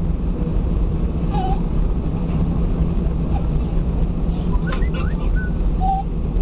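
Airbus A320 cabin noise while taxiing after landing: a steady low rumble from the idling jet engines and the rolling aircraft, heard from a window seat.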